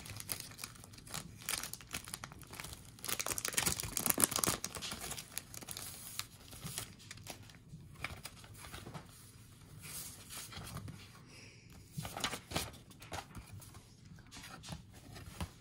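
Paper mail packaging handled and opened by hand: irregular rustling and crinkling of envelope and folded paper mailer, with sharper tearing sounds now and then.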